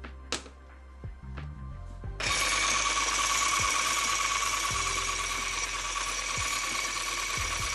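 Immersion blender with a balloon-whisk attachment switched on about two seconds in, its motor running steadily with a high whine as the whisk beats egg whites in a glass bowl.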